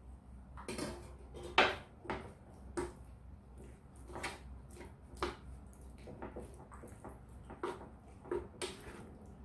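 Wooden spatula knocking and scraping against a frying pan while penne is stirred through a thick white sauce, in irregular soft clacks about every half second.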